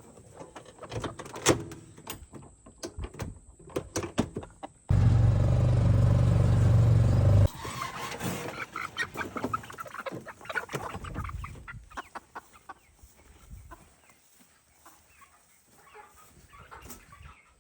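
Chickens clucking, with scattered knocks and clicks from handling. About five seconds in, a loud low rumble starts abruptly, lasts about two and a half seconds and cuts off.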